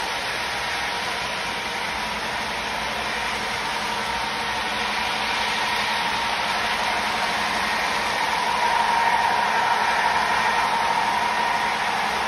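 Model train running on its track: a steady rolling hum with a whine that grows louder over the last few seconds as a locomotive comes near.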